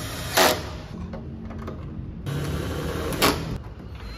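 Cordless drill-driver run briefly twice, about three seconds apart, driving screws into a motorcycle's plastic fairing and windscreen.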